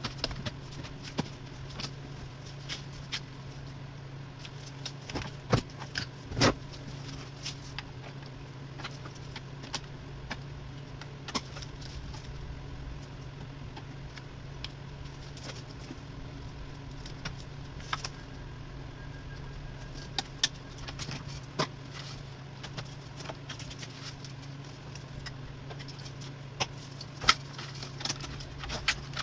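Scattered metallic clicks, clinks and knocks of hand tools and parts being handled during work on a diesel engine, a few sharper ones about six seconds in and near the end, over a steady low hum.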